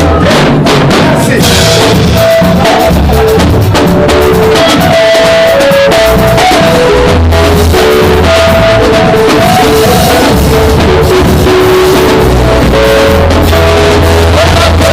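Loud worship band music: drum kit and bass under held chords.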